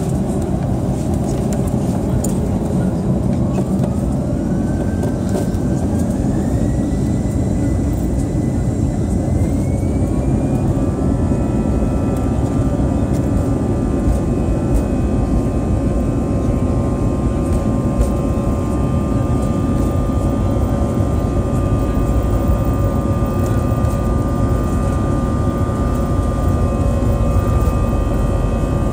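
Airliner's jet engines heard from inside the cabin spooling up to takeoff thrust: a whine climbs in steps over the first ten seconds, then holds steady over a loud rumble as the aircraft accelerates down the runway.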